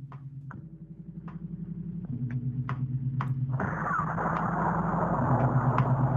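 Intro music: a low synth drone that changes chord every second and a half or so, with light ticks about twice a second, fading up. A dense rushing noise joins about three and a half seconds in.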